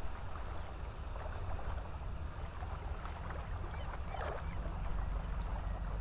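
Outdoor ambience of a sandy tidal flat: a steady low rumble with a faint hiss over it, and a brief faint call-like sound about four seconds in.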